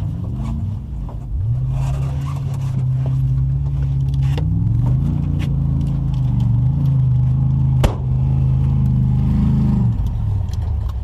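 Truck engine running and revving under load: the revs climb about a second and a half in, shift a few times and hold, then drop near the end. A single sharp knock comes near eight seconds.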